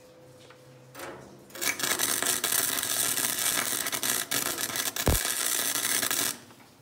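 Wire-feed (MIG-style) welder arc crackling as it welds a sheet-metal fender joint: a short burst about a second in, then a steady crackle for about four and a half seconds that cuts off suddenly.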